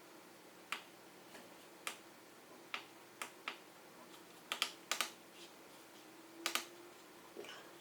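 Push buttons on a digital microscope clicking as its settings menu is stepped through: about a dozen short clicks at uneven intervals, some in quick pairs.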